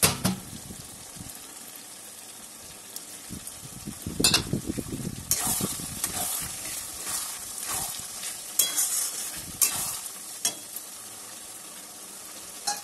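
Long metal spatula stirring and scraping in a metal wok (kadai) of frying chili chicken masala: a steady sizzle, with sharp clinks of the spatula against the pan about 4 seconds in and several more over the next few seconds.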